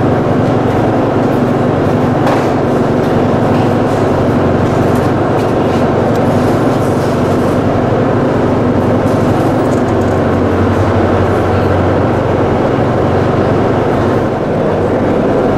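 A ferry's engines and machinery droning steadily, heard on the open car deck: a constant low hum with several steady low tones under a broad rumble, as the ship approaches its berth.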